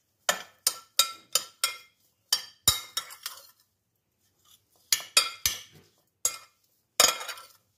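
Metal spoon stirring chopped boiled egg and vegetables in a bowl: quick runs of clinks and scrapes against the bowl, with a pause of about a second midway.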